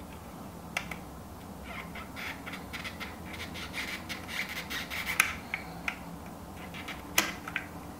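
Small plastic wire connector being wiggled side to side and pulled off a circuit-board header: a run of light clicks and scratchy rubbing, with a few sharper clicks.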